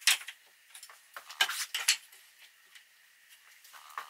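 Several short, sharp knocks and clicks of a pine strip being handled against the wooden table frame. The loudest comes right at the start, and a cluster follows about a second and a half in. A faint steady hum comes in near the end.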